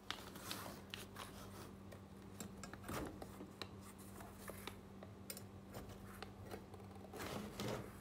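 Gloved hands handling a steel knife blank with pins set in its holes: scattered small metal clicks, taps and short scrapes, with a longer scrape near the end. A steady low electrical hum runs underneath.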